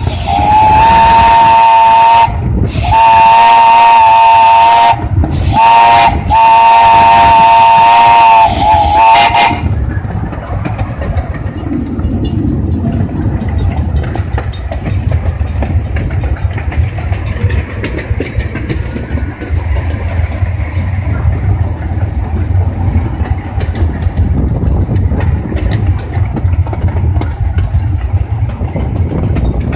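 Steam locomotive's chime whistle sounding a chord of several close tones in four blasts, long, long, short, long: the grade-crossing signal. It then falls quiet, leaving the steady low rumble of the small steam locomotive running along the track.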